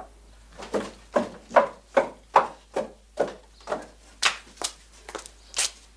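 A steady series of about a dozen knocks on wood, roughly two and a half a second, starting a little under a second in.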